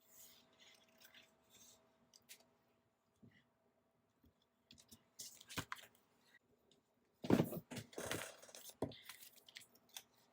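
Paper and sticker sheets being handled: soft rustles and small clicks, then a louder stretch of crinkling paper about seven seconds in, as stickers are picked out and peeled.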